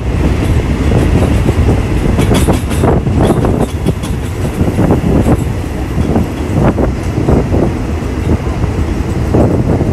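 Passenger train carriage rolling along the track, heard at an open window beside the coach: a steady running rumble with repeated irregular clacks of the wheels over the track.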